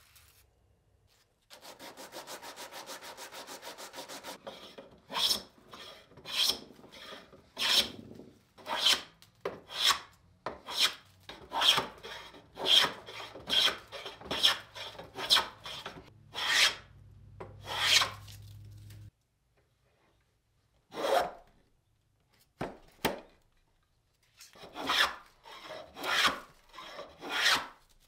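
Hand bench plane being pushed along a board in repeated strokes. Each pass is a brief swish of the iron cutting a shaving, coming roughly once a second with a few pauses between runs. It is preceded by a few seconds of fast, even scratching, and a low steady hum runs under part of the middle before cutting off suddenly.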